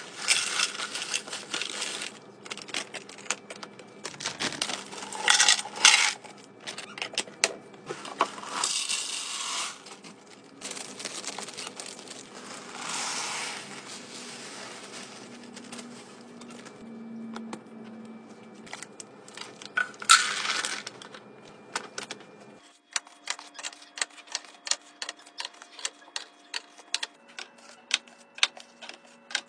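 Dry cereal pouring and rattling into a clear plastic canister in several loud bursts. In the last quarter, a run of rapid light clicks as eggs are set one by one into a clear plastic egg tray.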